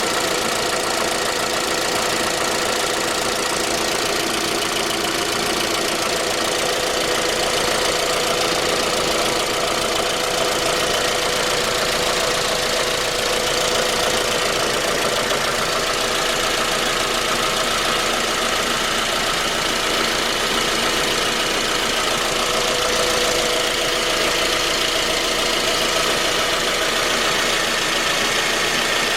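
Suzuki J20A 2.0-litre four-cylinder engine running steadily with a knock. The owner later traced the knock to a scored crankshaft journal on cylinder 3.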